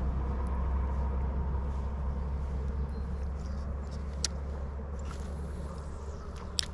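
Steady low rumble of wind on the microphone over the rush of creek water, with two sharp clicks, one about four seconds in and one near the end.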